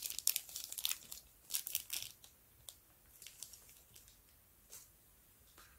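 Plastic wrapping crinkling and rustling as a roll of tape is handled, dense for the first two seconds and then thinning to a few faint clicks and rustles.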